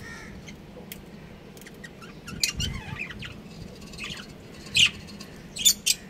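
Budgerigars giving short, sharp chirps and squawks at irregular intervals. The loudest call comes just before five seconds in, followed by a quick pair of calls near the end.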